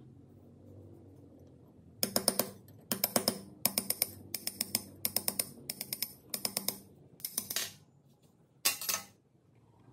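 A thin flat metal tool scraping up and down in a slot of a rusty bench vise: about nine short rasping strokes, each a rapid chatter of clicks, the last after a short pause.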